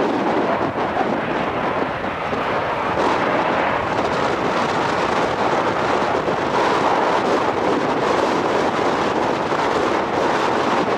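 Boeing 737-800's CFM56-7B turbofan engines running at low taxi power, a steady jet roar.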